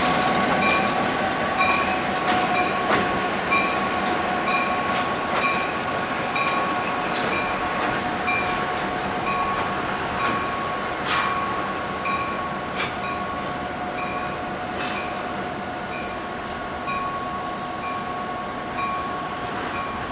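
Conrail diesel locomotive rolling past with its bell ringing in a steady, even rhythm and its wheels clicking over the rail joints. The sound fades as the locomotive moves away.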